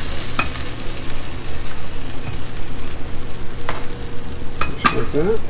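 Butter-brushed brioche buns sizzling steadily as they toast face down on a hot flat griddle pan, with a few light clicks and taps.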